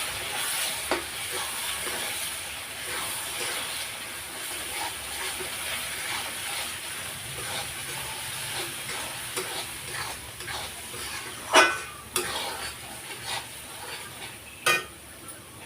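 Onion-and-spice masala sizzling in a kadhai after a splash of water, stirred with a spoon that scrapes the pan; the sizzle slowly dies down. Two sharper knocks of the spoon on the pan near the end are the loudest sounds.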